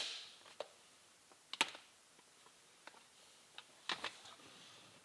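A few sharp clicks and light knocks of the removed factory shift-tower parts being handled and set down, the loudest right at the start and others about a second and a half and four seconds in.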